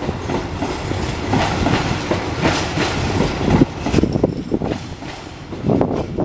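Stainless-steel passenger coaches rolling past as the train pulls into the station, their wheels clattering over the track in an irregular clickety-clack with a rumble underneath.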